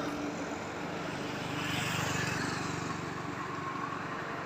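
Jonsered 2095 Turbo chainsaw's 93.6 cc two-stroke engine running steadily.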